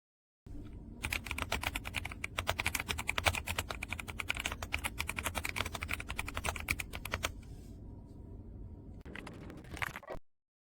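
Typing on a YUNZII AL66 mechanical keyboard: rapid key clacks for about six seconds, then a quieter stretch, then a few more keystrokes before the sound cuts off suddenly.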